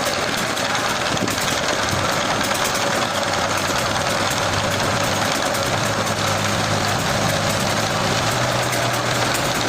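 Heavy machinery running steadily: an engine hum that shifts slightly in pitch, under a loud, even mechanical noise.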